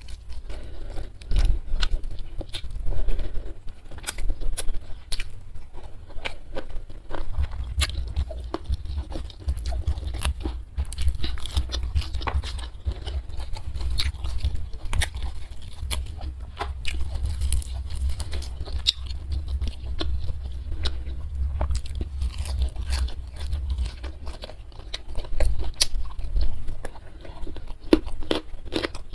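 Close-miked chewing and biting, with many short crisp crunches and mouth clicks, as a person eats rice, steamed fish and raw leafy greens by hand. A low rumble sits underneath through the middle stretch.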